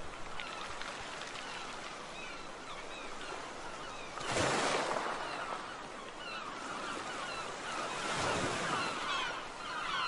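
Outdoor ambience of many short bird calls repeating in the background, with two louder swells of rushing noise about four and eight seconds in.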